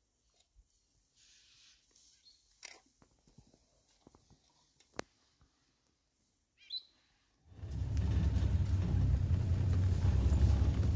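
Quiet bush with a single short bird chirp, then, about seven and a half seconds in, an open safari vehicle's engine starts running loudly and steadily.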